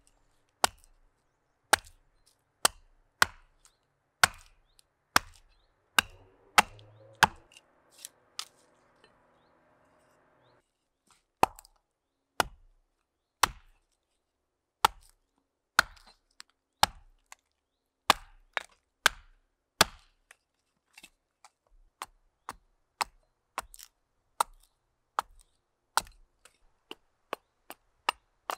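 Small carving axe chopping into a green-wood spoon blank on a chopping block, hewing it to shape: a string of sharp chops about one a second, a pause of a few seconds, then lighter, quicker strokes toward the end.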